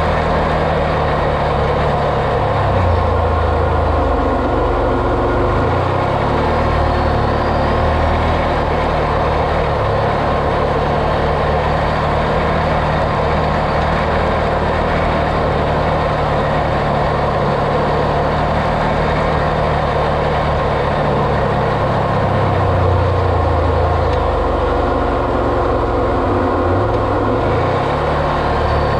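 Vehicle engine running steadily under way, its pitch dipping and rising a few seconds in and again near the end.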